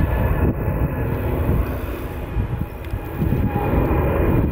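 Rolls-Royce Trent 7000 turbofans of an Airbus A330-900neo at climb power just after takeoff: a steady, heavy jet rumble with faint steady tones above it.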